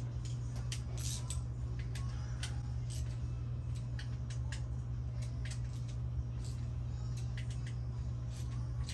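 Scattered light clicks and taps of hand tools and metal engine parts being handled, over a steady low hum.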